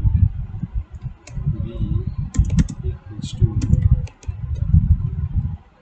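Computer keyboard being typed on, keystrokes clacking in short irregular runs with brief pauses, each stroke with a dull thud.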